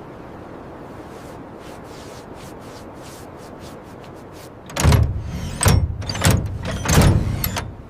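A steady hiss, then about five loud, heavy scraping strokes, each roughly two-thirds of a second apart.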